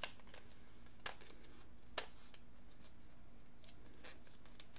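Makeup products being handled: three sharp clicks about a second apart, then a few faint taps, over a quiet room background.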